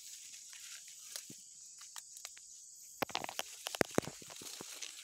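Footsteps through dry leaf litter and palm fronds, with leaves brushing against the body, crackling and rustling. Sparse for the first few seconds, then busier about three seconds in.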